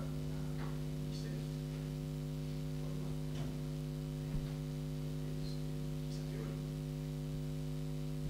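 Steady electrical mains hum of several tones from the recording system, with faint, brief traces of distant talk or room noise over it now and then.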